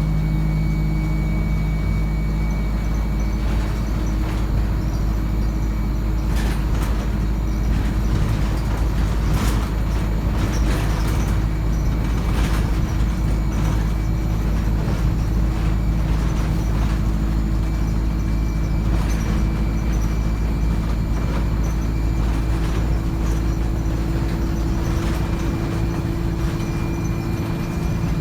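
Interior of an ADL Enviro 200 single-deck bus under way, its diesel engine and 3-speed Voith automatic gearbox running with a steady drone, a thin high whine from the transmission and turbo, and body rattles and knocks from the road.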